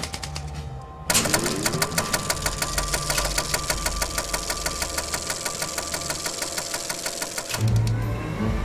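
Rapid, very regular mechanical clatter starts suddenly about a second in and runs evenly until near the end. There it stops and a low hum takes over.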